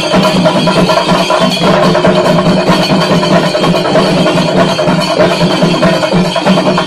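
Shinkari melam: a troupe of chenda drums beaten with sticks in a fast, dense, unbroken rhythm, loud.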